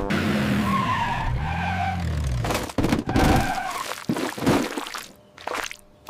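Cartoon sound effects of a truck engine revving up and down with tyres skidding, followed by a few thuds.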